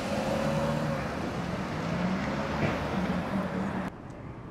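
A car driving past close by, with steady engine hum and tyre noise. Near the end it cuts off abruptly to quieter street background.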